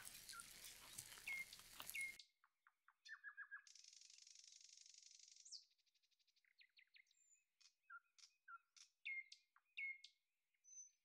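Faint bird chirping: short, scattered calls over near silence, with a brief patch of high hiss near the middle.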